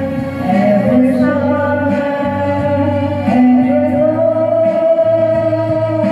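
A voice singing through a microphone over a backing track with guitar, likely karaoke, with a long held note from about four seconds in.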